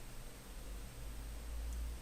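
Quiet room noise at the desk microphone, with a low rumble swelling about half a second in and easing off at the very end, and one faint computer-mouse click near the end.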